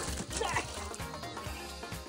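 Background music with a steady beat, with a short wavering vocal sound in the first half-second.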